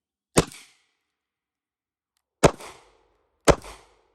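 Gunshots: three sharp reports, one about half a second in and two more about two and three seconds later.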